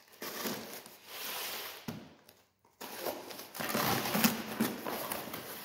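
Cardboard box being opened by hand: the flaps pulled apart and the packed contents rustling and scraping. The scratching comes in two stretches, with a short pause about two seconds in.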